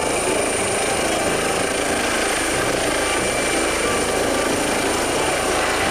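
Air ambulance helicopter lifting off and climbing: steady rotor and turbine noise with a constant high-pitched whine running through it.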